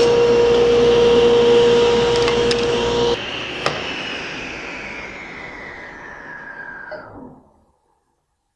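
SawStop table saw with a ripping blade running at full speed as it finishes a rip cut through the board. It is switched off about three seconds in and the blade winds down with a falling whine until it stops near the end, with a single click just after the switch-off.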